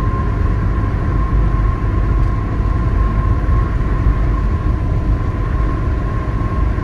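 Car driving at highway speed, heard from inside the cabin: a steady low road-and-engine rumble with a faint steady tone above it.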